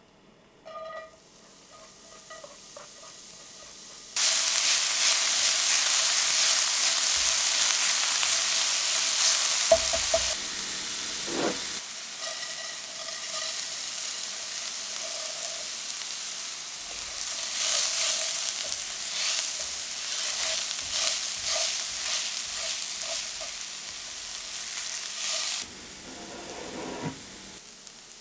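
Frying in coconut oil in a cast iron skillet, with arborio rice being stirred through the hot oil. A loud sizzle starts suddenly about four seconds in and eases after about six seconds into a lower sizzle with repeated scraping of the stirring.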